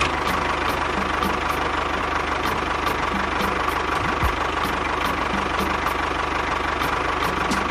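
The small motor of a DIY miniature tractor or bulldozer running steadily with a constant whine, and a faint ticking about two or three times a second.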